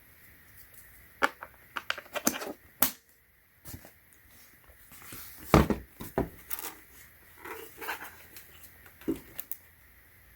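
Irregular clicks and knocks of a wireless ergonomic keyboard being handled around its AA battery compartment, with one heavier knock about halfway through.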